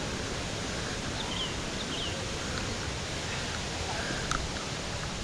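Steady rush of river water, with a few faint bird chirps about one and two seconds in.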